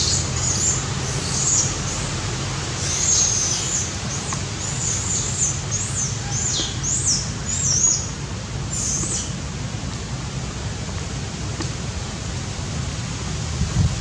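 A bird singing a quick run of high chirps and down-slurred whistles that stops about nine seconds in, over a steady low rumble.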